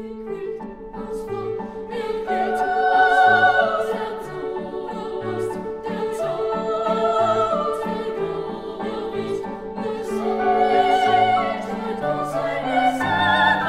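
Background music in a classical style: long held notes that waver in pitch, like sung or bowed notes, over a slowly changing bass line.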